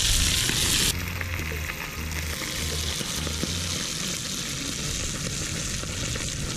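Catfish pieces frying in hot oil in a pan over a wood fire: a steady sizzle that drops in level about a second in and carries on.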